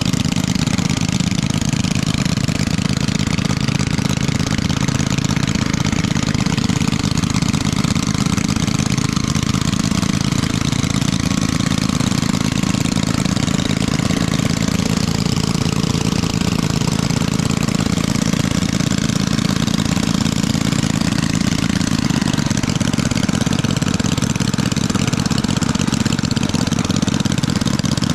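A small engine running steadily at an even speed, with no change in pace.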